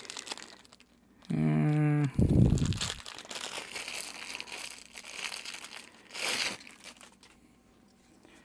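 Plastic packaging crinkling and rustling as a bag holding a watch strap is worked open, with a brief louder crackle a little after six seconds.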